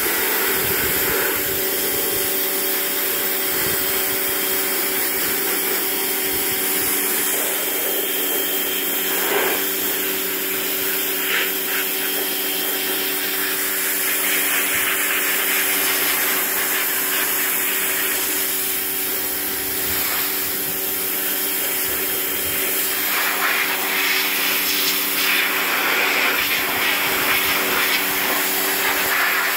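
Small electric pressure washer running steadily: a constant motor-and-pump hum under the hiss of the water jet striking a steel grille panel, rinsing off rust-remover residue.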